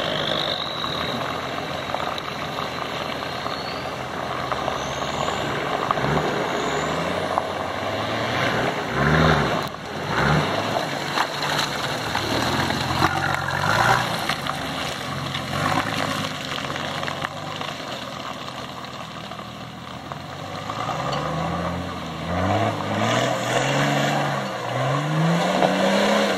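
Off-road 4x4 engines revving hard in repeated surges, pitch climbing and dropping again and again, as the trucks push through deep mud ruts. The surges come faster near the end.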